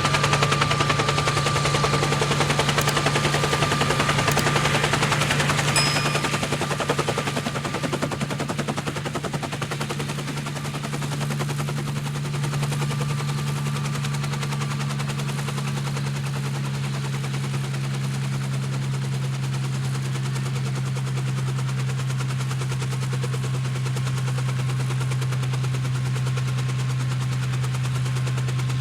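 A steady low mechanical hum with a fast rattling pulse. It is louder and noisier for the first six seconds or so, then settles to an even level.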